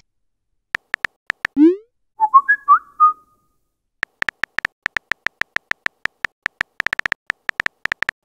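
Phone messaging-app sound effects: a few keyboard tap clicks, then a rising whoosh as a message pops up, then a short chirpy whistle-like notification tune. After that comes a long run of rapid keyboard tap clicks as the next message is typed.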